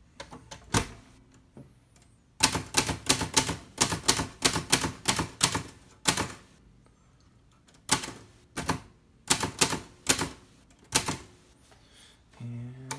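Hispano Olivetti Studio 46 manual typewriter being typed on: a fast run of key strikes, a short pause, then a few more scattered strokes.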